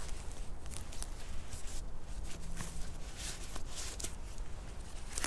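A hiker's footsteps on a trail: crunching steps roughly every half second to second, with an uneven rhythm.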